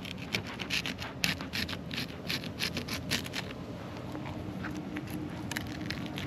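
Fillet knife cutting along a red snapper's back through scales and skin, a rapid, irregular scraping crackle that thins out after about three and a half seconds.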